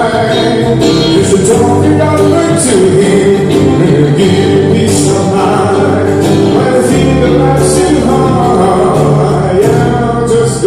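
Live acoustic band music: acoustic guitar strummed steadily under a singing voice.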